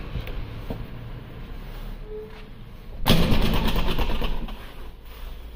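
A vehicle engine bursts into sound about three seconds in, sudden and loud for just over a second before fading, over a steady low hum.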